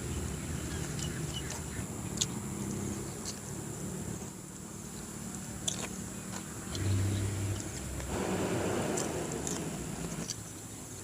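A person eating and chewing food, with scattered short smacking clicks and a brief low hummed tone about seven seconds in.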